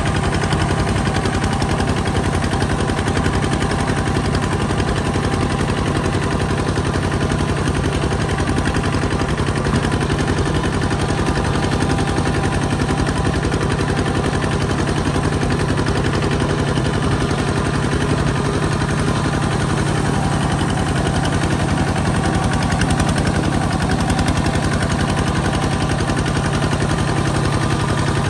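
Kubota ZT140 Plus two-wheel tractor's single-cylinder diesel engine running steadily with a rapid, even chugging as the tractor is driven.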